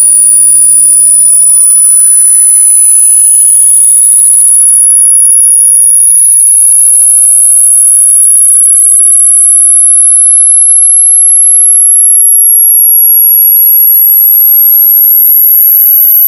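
Very loud, shrill electronic sine tone, high-pitched and slowly rising. Fainter tones sweep up and down around it and merge with it about ten seconds in.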